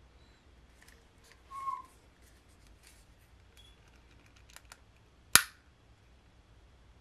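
Handling noise from a small plastic cup of acrylic paint worked against the canvas: faint ticks, a short high squeak about one and a half seconds in, and a single sharp click about five seconds in.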